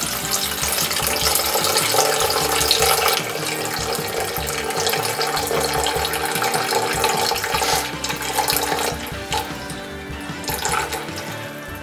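Water pouring in a thin steady stream from a plastic cup into a clear cylindrical container, splashing into the water already in it. The pour gets quieter about nine seconds in.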